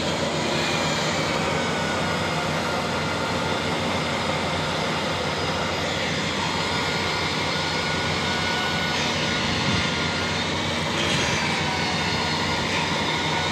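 Concrete core cutting machine running steadily, its motor and diamond bit cutting through reinforced concrete, with an even, unbroken drone and a few faint steady whining tones over it.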